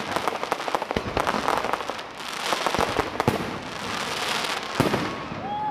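Fireworks going off: rapid crackling from glittering crackle bursts, then hissing, and a sharp bang about five seconds in.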